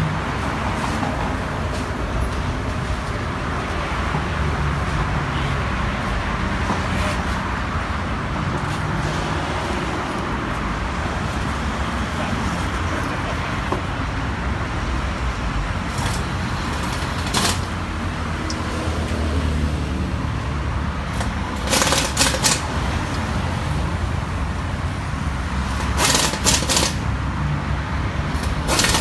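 Steady road traffic noise, with a few short clusters of sharp clicks or knocks in the second half.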